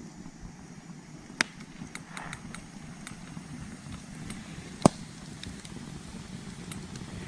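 Wood campfire burning with a low steady crackle, broken by two sharp pops, the louder one about five seconds in.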